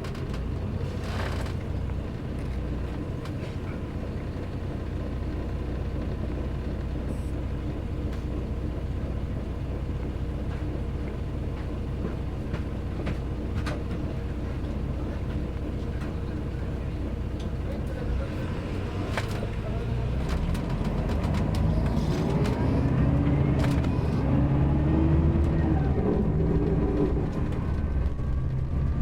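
Mercedes-Benz OM-457LA inline-six diesel engine of a Marcopolo Paradiso double-decker bus running with a steady drone, growing louder with shifting pitch in the last several seconds.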